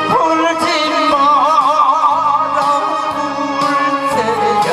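A man singing into a microphone over a backing track, holding one long note with a wide vibrato through the middle before it falls away near the end.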